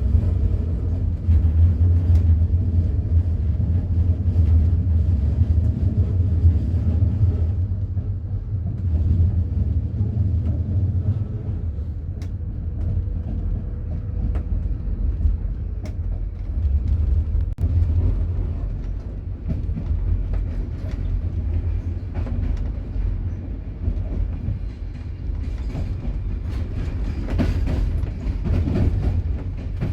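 Passenger train running along the track: a steady low rumble with scattered faint clicks from the wheels and rails, growing brighter and more rattly near the end.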